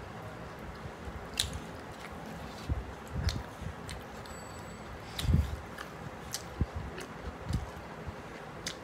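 Close-up eating sounds of mutton biryani: chewing with wet mouth smacks and clicks, coming irregularly, the loudest a little past halfway.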